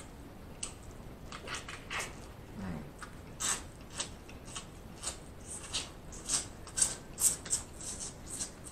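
Close-miked mouth sounds of eating seafood dipped in sauce: irregular wet smacks and chewing clicks, coming thicker and louder in the second half.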